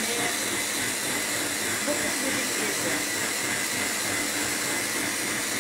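Electric blender, its motor unit mounted on top of a jug, running steadily with a high whine as it purées tomatoes, pepper, onion and bread into a thick gazpacho paste.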